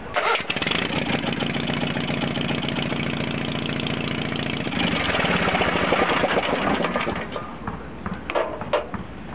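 The Case 446 garden tractor's Onan engine starts abruptly and runs at a steady idle. About five seconds in it turns louder and rougher, then dies away, with a few clicks near the end. The tractor now starts after its no-crank, no-start electrical fault was repaired.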